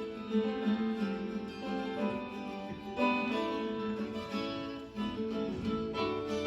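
Background music: acoustic guitar played with plucked and strummed notes.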